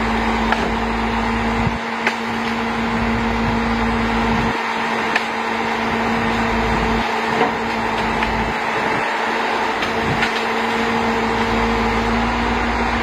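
MAN knuckle boom truck running steadily to drive the Palfinger crane's hydraulics, with a constant hum. The deep rumble drops away and comes back several times as the crane works, and a few light knocks come through.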